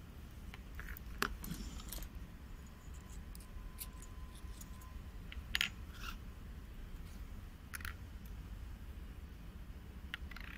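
Stainless-steel ball valve stem parts clicking and clinking now and then as they are handled and taken apart, a few separate sharp clicks over a steady low hum.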